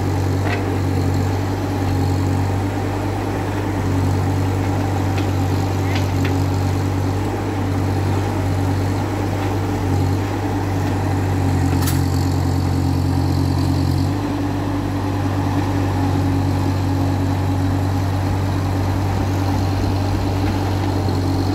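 JCB mini excavator's diesel engine running steadily under hydraulic load as the machine levers itself up onto a lorry's bed with its boom. The engine note shifts slightly about two-thirds of the way through, and a few short sharp clicks sound over it.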